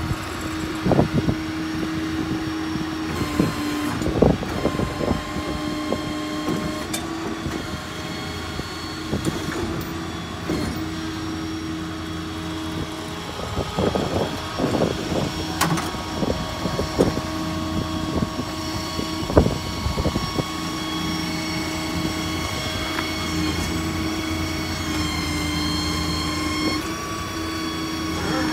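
Ford 6.7 diesel running with its PTO-driven hydraulic pump engaged: a steady hum and whine that steps in pitch several times as the hydraulic functions (outriggers, Maintainer crane) are worked. Scattered clicks and clunks of control levers and metal run through it.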